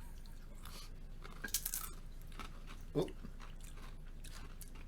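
Crunchy chip snack being bitten and chewed, with a short cluster of crisp crunches about one and a half seconds in.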